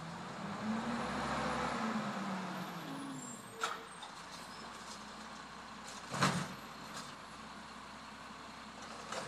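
Automated side-loader garbage truck's engine running as it pulls up, its pitch rising and falling over the first few seconds, then two short sharp sounds about three and a half and six seconds in as the truck stops and its lifting arm reaches for a bin cart.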